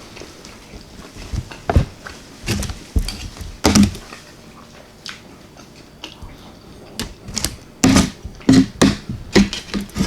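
A person chewing and eating close to the microphone: irregular clicks and smacks of the mouth and food, growing denser and louder in the last few seconds.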